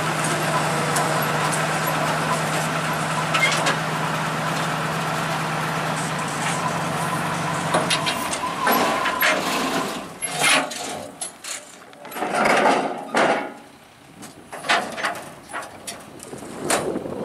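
Combine harvester engine running steadily, then shutting off about eight seconds in. After it stops, irregular metallic knocks and clatter.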